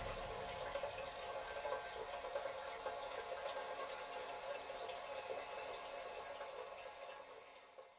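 Liquid in a drinking glass, a fizzing hiss of many tiny ticks and drips, dying away over the last second or two.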